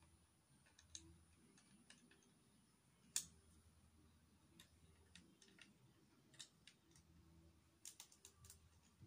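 Faint, scattered clicks of plastic Lego bricks being handled and pressed together. One sharper click comes about three seconds in, and a quick run of clicks comes near the end.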